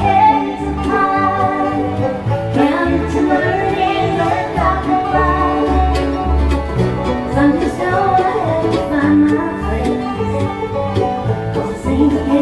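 Bluegrass band playing live with banjo, guitar, mandolin, fiddle and upright bass, the bass keeping a steady pulse under the picked melody.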